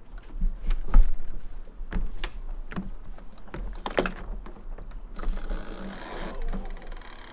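Sailboat deck hardware working: a few sharp knocks and bumps, the loudest about a second in, then from about five seconds a few seconds of rapid rasping ratchet noise, like line running through a ratchet block or a winch being worked.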